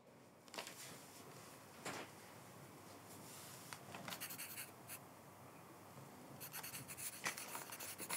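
Faint scratching of a pen on paper in short, irregular strokes, handwriting notes, growing busier near the end.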